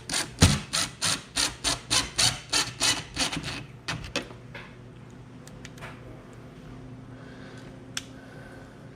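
Rapid, even rasping strokes, about four a second, like a hand tool sawing or scraping, stop after about three and a half seconds. A few scattered clicks follow.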